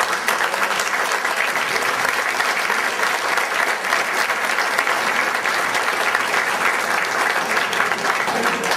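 Audience applause: dense, steady clapping.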